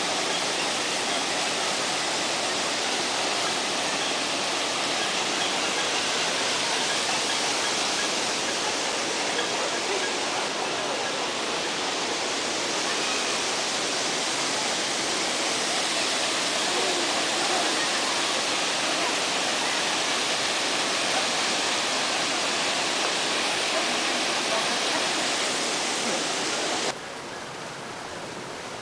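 Steady rush of running water, loud and even. Near the end it drops suddenly to a quieter rush.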